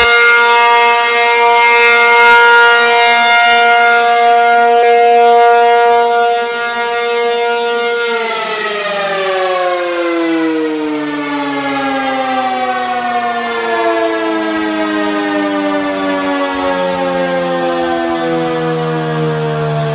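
P-50 outdoor warning siren sounding loud from directly below. It holds one steady pitch, then about eight seconds in the pitch starts falling slowly as the siren winds down.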